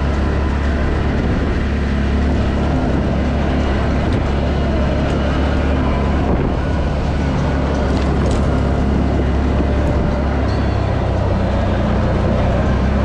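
ATV engine running steadily under way, loud and close, with its low hum unbroken throughout.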